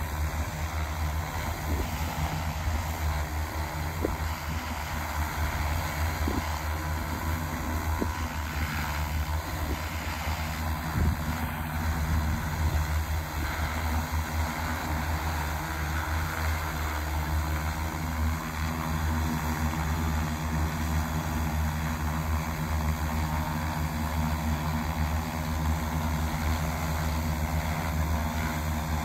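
Large X1400 industrial multirotor drone hovering, its motors and propellers giving a steady low hum that holds at one pitch.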